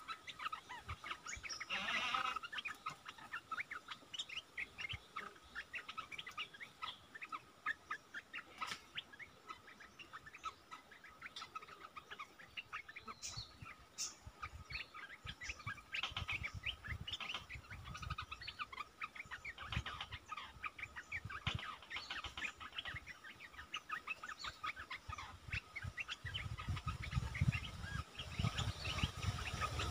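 Olive-winged bulbuls calling: a continuous run of short, quick chirping notes over a steady thin high tone. A low rumble builds near the end.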